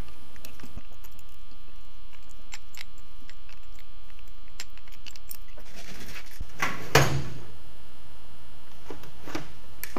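Small irregular clicks of a Torx screwdriver working at the cover screws of a plastic-cased ABS brake control module, followed about seven seconds in by a louder knock as the module is set down on the wooden bench.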